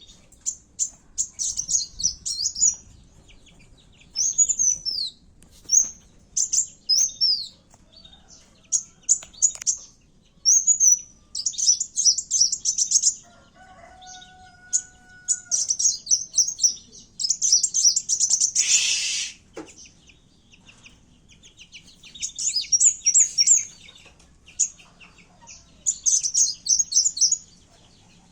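A kowul (sunbird) singing its fighting song in rapid, high-pitched chirping and trilling phrases, in many short bursts separated by pauses. There is a brief loud rustle about two-thirds of the way through.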